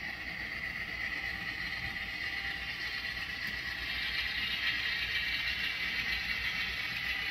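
Model GP9 diesel locomotive's electric motor and gear drive whirring steadily as it runs along the track pulling freight cars, with the rolling of wheels on rails; the whirr grows louder about four seconds in as the train comes closer.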